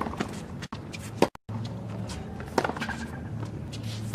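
Tennis ball struck by rackets in a rally: a serve, then sharp pops about every second and a third, four in all, over a steady low hum. The sound drops out briefly a little after a second in.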